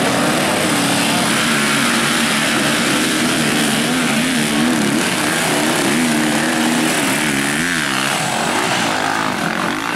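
Several enduro dirtbike engines revving hard and unevenly while struggling for grip on a muddy climb. The pitch wavers up and down, with one engine blipping in quick rises and falls near the end.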